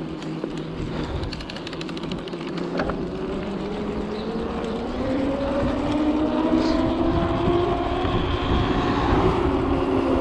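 Mountain bike rolling down a trail: tyre rumble and wind on the microphone, with rapid clicking early and a whine that rises in pitch and grows louder over the second half as the bike picks up speed.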